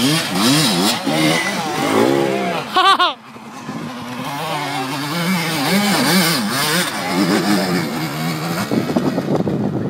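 Dirt bike engines revving up and down under throttle as they climb a steep dirt slope. One engine revs hard to a high pitch and cuts off sharply about three seconds in. After that, another bike revs hard as it passes close near the end.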